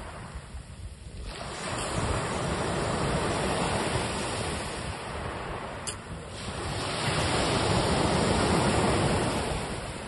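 Ocean surf: waves surging in and washing back, swelling twice, first from about a second in and again after a short lull near the middle.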